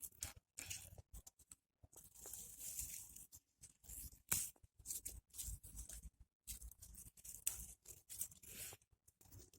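Faint, irregular food-preparation handling sounds: short rustling, tearing and scraping strokes, broken by brief silent gaps.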